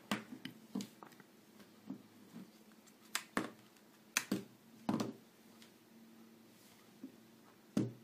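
Irregular sharp plastic clicks and knocks from a Nokia 5700 XpressMusic swivel phone being handled, its lower half twisted round and its keys pressed, with the loudest clicks in the middle.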